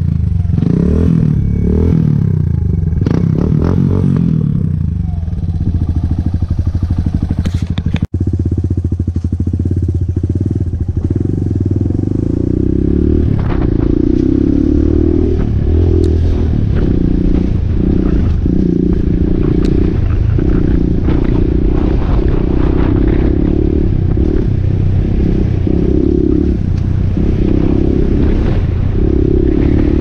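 Suzuki DR200S's single-cylinder four-stroke engine running through an FMF Q4 slip-on exhaust as the dirt bike is ridden along a trail. The engine note rises and falls over and over with throttle and gear changes. The sound cuts out for an instant about eight seconds in.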